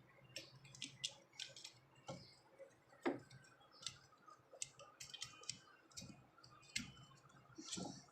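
Faint, irregular light clicks and taps of small objects being handled, the loudest about three seconds in.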